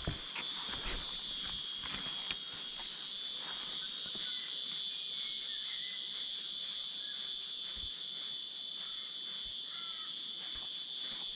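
A steady, high-pitched chorus of insects buzzing without a break, with a few faint clicks in the first couple of seconds.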